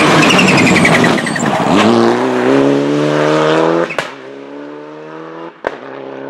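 Mitsubishi Lancer Evo 8 rally car's turbocharged four-cylinder engine at full effort, its tyres squealing briefly through a hairpin, then the engine note rising steadily as it accelerates away. About four seconds in the sound cuts to the same engine heard fainter and steadier in the distance.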